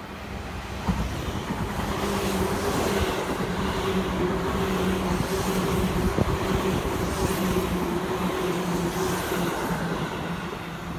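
Seibu 2000 series electric train running past along the platform: wheels rumbling on the rails under a steady two-note hum from its motors. It grows louder over the first couple of seconds and eases off near the end as the last car goes by.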